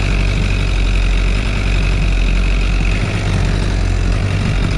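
Heavy engine running steadily at an even speed, a deep rumble with a steady higher hum over it.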